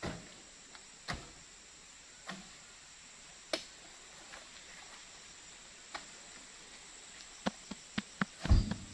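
Scattered knocks and thuds of oil palm fruit bunches being lifted on a pole and dropped onto a heaped truck load as it is tidied, with a quick run of knocks and the heaviest thump near the end. A steady high insect drone sounds throughout.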